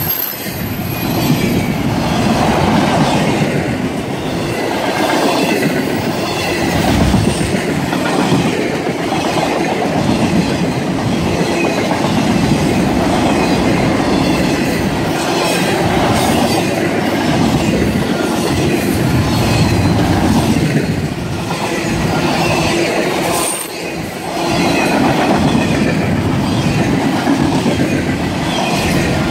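Intermodal freight train of container-laden well cars rolling past close by: loud, steady wheel-on-rail noise that swells and dips as each car's wheels go by.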